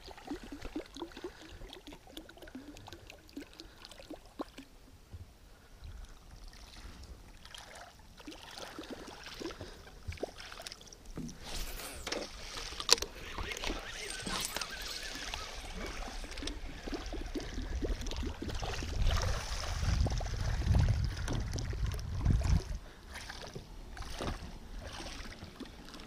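Water sloshing and splashing around a small fishing boat, with a sharp knock about a third of the way in and a low rumble about three quarters of the way through.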